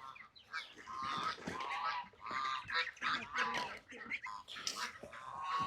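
A group of ducks quacking, many short calls in quick succession.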